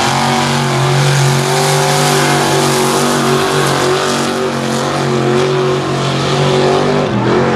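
Mega mud truck's engine held at high, steady revs as the truck plows through mud, over a broad rushing noise; the revs drop near the end.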